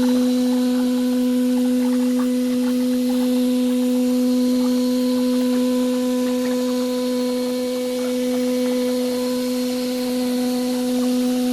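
CNC glass processing machine running with a steady, unchanging hum at one pitch, with faint scattered ticks over it.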